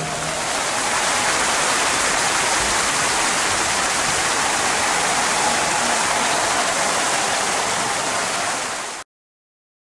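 Steady rushing noise of running water that cuts off abruptly about nine seconds in.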